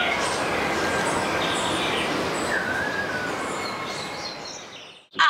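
Outdoor evening ambience: birds chirping and whistling over a steady background hiss, fading out near the end.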